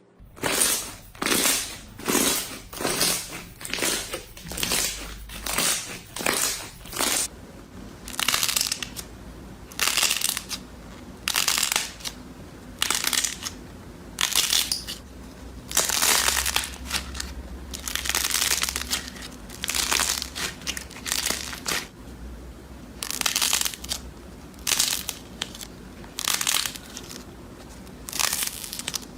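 Slime being squeezed and pressed by hand, in a run of noisy crunching squishes: quick ones for the first few seconds, then slower, longer squeezes about once a second.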